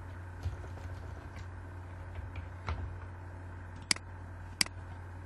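Soft computer keyboard typing as faint scattered taps, then two sharp computer-mouse clicks less than a second apart near the end, over a steady low hum.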